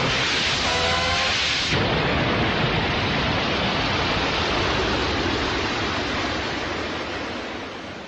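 Audience applauding and cheering as a steady wash of noise, with the tail of the posing music under it for the first couple of seconds. The applause fades away toward the end.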